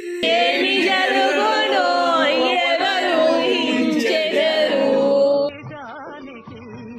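Several voices singing loudly over music, cutting off suddenly about five and a half seconds in; quieter background music follows.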